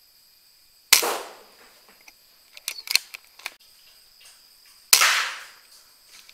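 PCP air rifle firing twice, about four seconds apart, each shot a sharp crack with a short ringing tail. A few light clicks fall between the shots.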